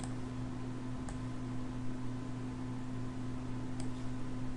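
Steady low electrical hum and hiss of a recording setup's background noise, with a few faint clicks.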